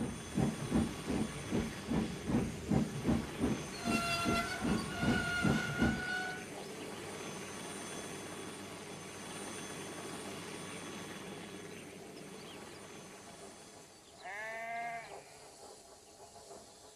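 Steam locomotive chuffing steadily at about three puffs a second, with two blasts of its whistle about four seconds in. The chuffing stops about six seconds in, leaving a steady hiss and low rumble, then a short wavering squeal near the end.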